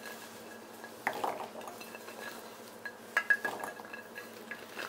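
Garlic cloves tipped from a ceramic plate into a stainless steel mixer-grinder jar: a few light clinks and taps of the cloves and plate rim against the steel, about a second in and again around three seconds in.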